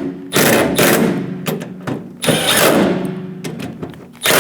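Power driver with a T30 bit running screws down snug into a door lock actuator, in several short bursts of motor whine with brief pauses between them.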